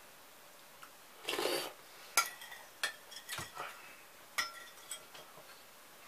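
Metal spoon clinking and scraping against a porcelain soup bowl while the last of the borscht is scooped up: several sharp clinks at uneven intervals. There is a short scuffing noise about a second and a half in.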